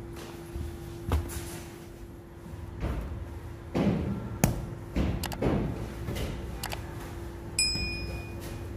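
Bakery work sounds: scattered thumps and sharp knocks over a steady machine hum, busiest in the middle, with a short ringing ping near the end.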